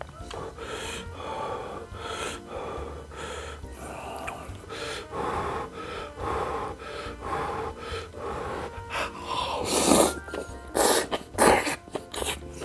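Person eating ramen noodles with green onion kimchi: wet chewing and slurping, with a run of loud slurps near the end.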